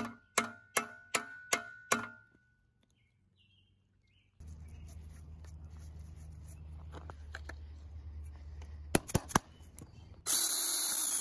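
Hammer strikes on a shovel's riveted steel socket resting on an anvil, peening the rivet that holds the wooden handle. There are about six ringing metal blows, roughly two and a half a second, in the first two seconds. Later come a steady low rumble, a few sharp clicks, and near the end a burst of hiss about a second long.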